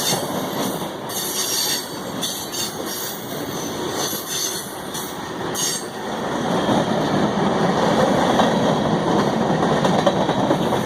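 CSX freight train rolling past, with a steady rumble of wheels on rail and short high wheel squeals in the first half. It grows a little louder about six seconds in.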